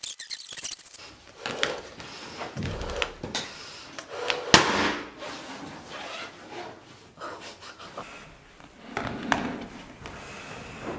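Someone blowing up a heart-shaped latex balloon: several long puffs of breath into it, with short clicks and squeaks of the rubber, and a sharp snap about four and a half seconds in that is the loudest sound.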